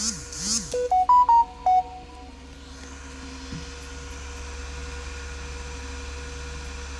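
A whoosh sound effect followed by a short electronic chime of about five clear notes, first rising then falling, then a steady low electrical hum.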